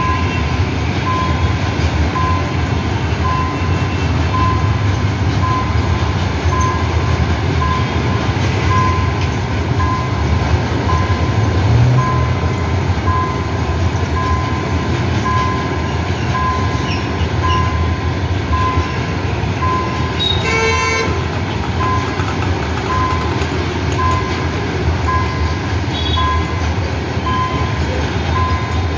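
Goods train passing with a steady, heavy low rumble. A short horn toot comes about twenty seconds in, and a faint high beep repeats about every 0.7 seconds throughout.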